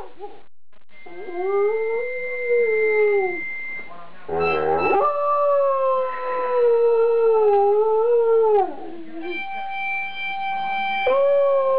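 Afghan Hound howling along to a harmonica: a wavering howl, then a longer one of about four seconds that sags and lifts in pitch, with held harmonica notes between them. A further howl starts near the end over a sustained harmonica chord.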